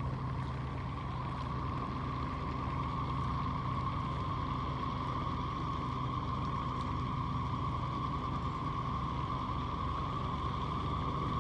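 A steady motor drone holding one even pitch, with a low hum beneath it.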